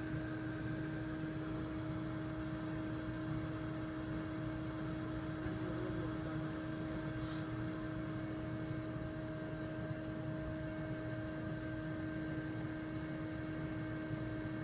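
Bee-removal vacuum running steadily, a constant motor hum with a faint whine over a hiss of airflow.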